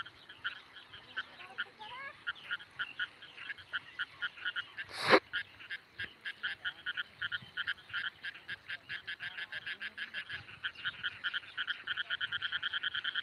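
Short animal calls repeated in quick succession, thickening into a fast, even pulse near the end. One loud thump about five seconds in.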